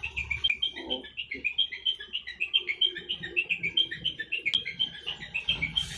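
Rapid high chirping from small birds: many short chirps, several a second, in a continuous run.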